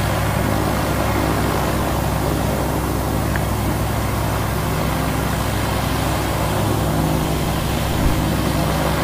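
Small single-engine propeller airplane's engine and propeller droning steadily, heard from inside the cockpit.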